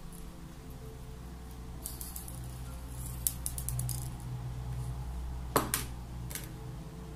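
Small glass jars and a glass bowl being handled: a quick run of light ticks as dried rose petals are dropped into the bowl, then a sharp glass clink with a second, softer one as a jar is set down, and one more light knock shortly after. A faint low hum runs underneath.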